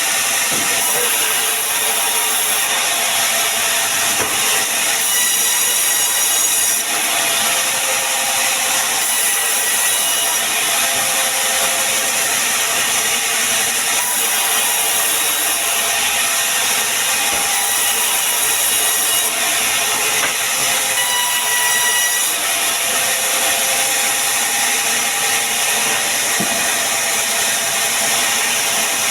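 Sawmill saw cutting pine wood, a steady loud rasp of the blade in the wood with faint high tones that shift every few seconds.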